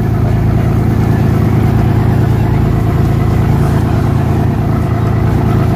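Tour boat's engine running steadily, a constant low hum.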